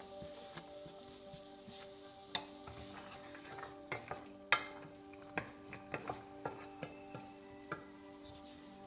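Diced carrots being stirred in a frying pan with a wooden spatula over a soft sizzle, with scraping and a series of short knocks of the spatula against the pan, the sharpest about four and a half seconds in.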